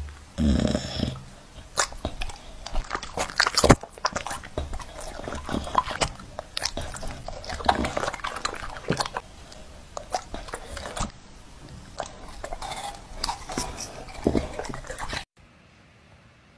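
An American bully-type dog eating dragon fruit off a fork: loud, irregular wet chewing and lip-smacking with sharp crunches. The chewing stops abruptly near the end.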